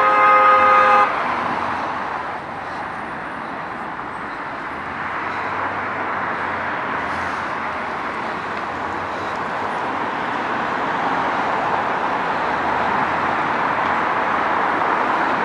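A vehicle horn sounds one steady note, loud, and cuts off about a second in. After it comes the steady noise of traffic on a busy multi-lane city road.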